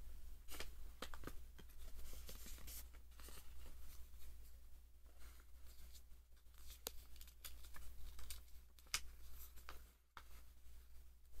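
Paper and cardboard being handled: a small cardboard lighter box opened and a paper leaflet pulled out and unfolded, giving scattered light clicks, taps and short rustles. A low steady hum runs underneath.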